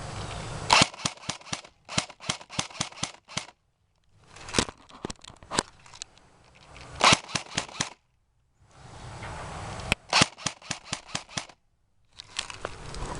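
Airsoft guns firing in quick runs of sharp shots, several a second. The shots come in short separate bursts, each cut off abruptly with a moment of dead silence between them.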